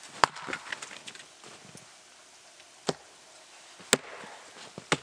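An axe chopping maple firewood: four sharp wooden strikes, the first the loudest and followed by a brief clatter of small knocks.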